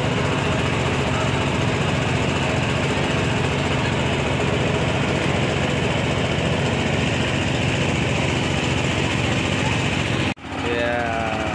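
Small lake tour boat's engine running steadily with an even, low drone, cut off abruptly about ten seconds in; voices follow near the end.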